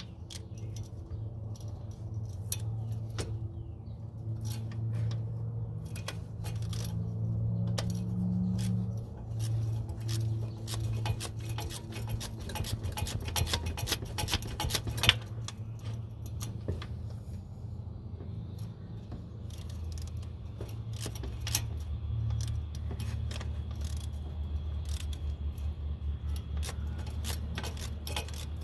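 Metal hand tools clinking and a ratchet clicking in irregular runs as the starter's bolts are worked on, over a steady low hum.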